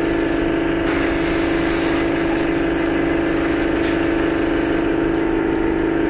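Steady mechanical hum of workshop machinery, one unchanging pitched drone, with a hiss on top that grows and fades.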